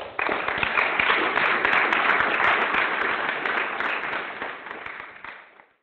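Audience applauding, starting at once and fading out near the end.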